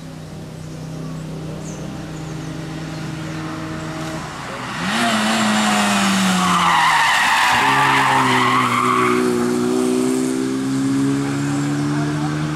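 Volkswagen Golf Mk2 hill-climb race car taking a corner. About five seconds in it gets loud and its engine note drops as it slows for the bend, and its tyres squeal for a few seconds through the corner. The engine pitch then climbs as it accelerates away.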